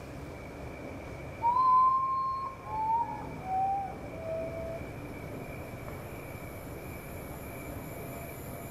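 A bird call of four clear hooting notes, each lower than the last, the first held longest, over a faint steady high insect-like drone.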